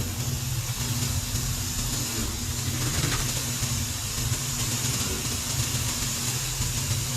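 A steady low hum of a running machine, with an even hiss over it.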